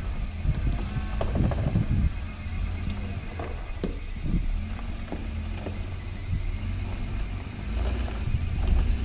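Off-road 4x4 vehicle's engine running at low speed on a rough trail, a steady low rumble with scattered knocks and clunks.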